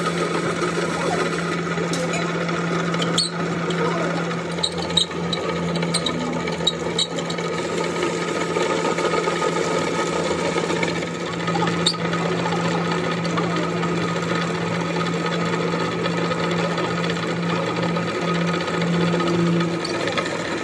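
Power-driven drill bit boring into a steel part, a steady motor hum under the grind of the cut, with a few sharp clicks in the first third.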